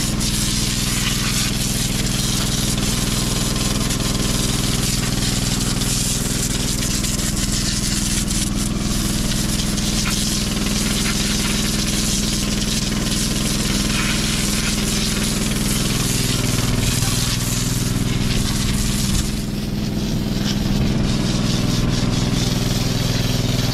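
Pressure washer running: a steady motor drone under the hiss of a high-pressure water jet spraying onto the steel track plates and track frame of a crawler dozer.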